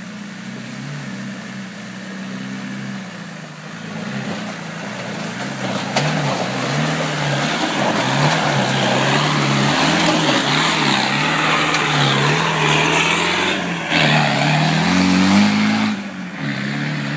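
Land Rover Defender 90's diesel engine working under load as it climbs a rock track, the revs rising and falling. It grows louder as it comes close, rises in pitch near the end, then drops away as it drives off.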